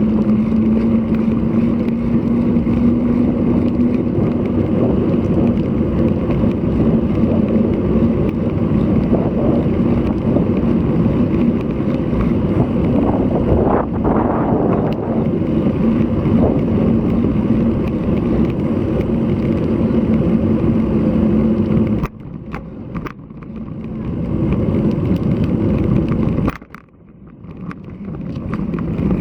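Riding noise from a road bike at speed on a windy day: a steady rush of wind and road noise on the action-camera microphone with a low steady hum under it. About 22 seconds in the noise drops off sharply and then comes and goes, as the bike slows.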